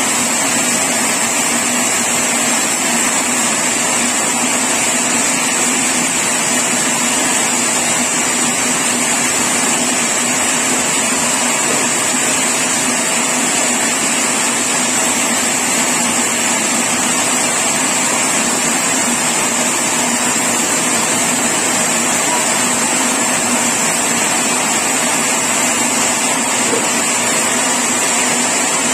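Sawmill machinery running steadily: a loud, constant mechanical noise with a steady high whine over it.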